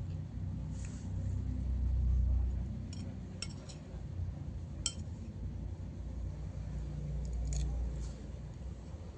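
A spoon clinking against a plate about five times while eating, with a low, muffled rumble between the clinks.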